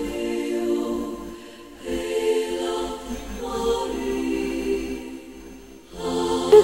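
Choral background music: voices singing long held chords, dipping briefly twice, about two seconds in and again near the end.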